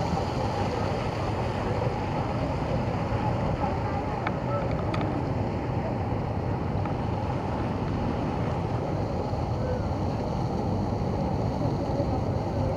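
Outdoor crowd ambience: a steady low rumble of wind on the microphone with faint murmuring voices, and a couple of small clicks about four to five seconds in.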